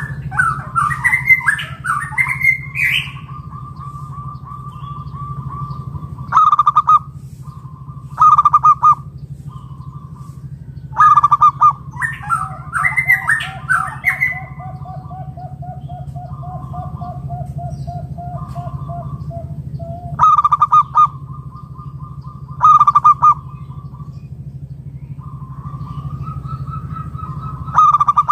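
Zebra doves (perkutut) cooing in rapid trilled phrases, with loud, sharp outbursts every few seconds. A second, lower trill runs through the middle. A steady low hum sits underneath.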